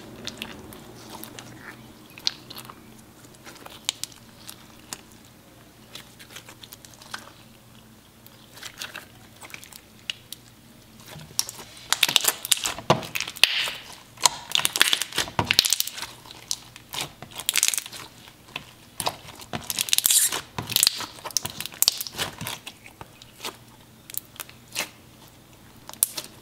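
Clear jelly cube slime being squeezed and kneaded by hand: wet crackling, popping and squelching as the slime and jelly cubes are squished. The sounds come in uneven clusters, loudest about halfway through and again around two-thirds of the way in.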